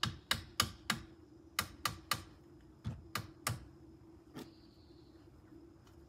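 Mallet striking the roof-mounted Rockymounts Tomahawk bike rack: about eleven sharp taps in quick groups of three or four, a last single tap just past the middle, over a steady low hum.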